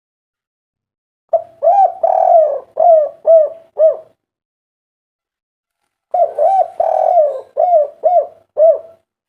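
Spotted dove singing two cooing phrases, a few seconds apart. Each phrase has two short coos, a longer rolling coo, then three short arched coos.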